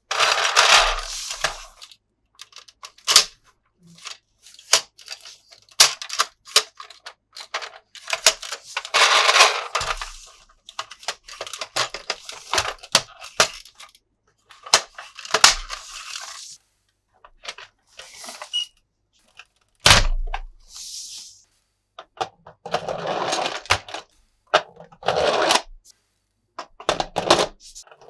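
Plastic toys being handled: irregular clicks, clacks and knocks, with a few longer stretches of scraping or rustling.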